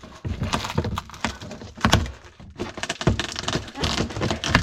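Plastic refrigerator panel being pried and pulled away from foam insulation stuck in place by built-up ice: a run of irregular cracks, creaks and knocks.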